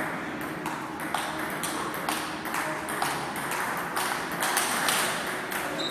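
Table tennis rally: the ball being struck by paddles and bouncing on the table, several sharp clicks a second in an irregular patter.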